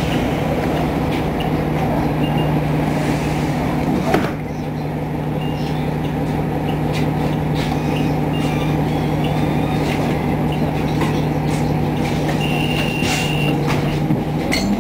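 Cummins ISL9 diesel engine of a 2012 Nova Bus LFS idling steadily at a stop, heard from inside the bus cabin. A brief loud burst comes about four seconds in, a high beep lasts about a second near the end, and the engine's hum then starts to rise in pitch as the bus begins to pull away.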